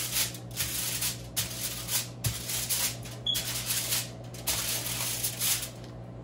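Aluminium foil lining a baking pan rustling and crinkling under a stick of butter rubbed over it in repeated strokes, about one a second, to grease it.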